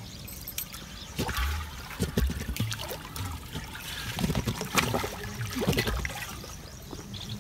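Water gurgling and splashing irregularly as earthenware pots are dipped into a shallow irrigation channel and fill up, with short knocks of the pots against the water and the channel's edge.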